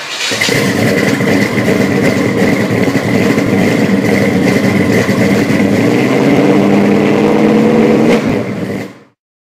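A car engine running loudly and revving, which cuts off about nine seconds in.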